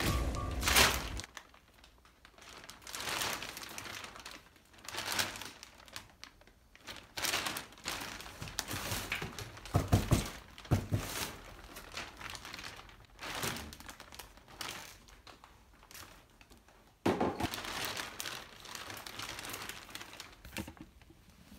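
Clear plastic vacuum-storage bags crinkling as they are handled, with a hard plastic storage bin being moved about and knocked, giving a couple of hollow thunks about halfway through.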